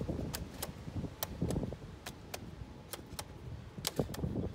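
A dozen or so sharp, irregular plastic clicks and light clatter as the wiring harness connectors are pressed and seated onto the new ignition coils of a 2012 VW GLI's engine.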